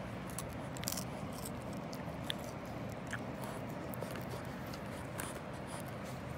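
Boston Terrier chewing on a fresh lotus flower stem: irregular short crisp crunches and snips as the stalk is bitten, over a steady background hiss.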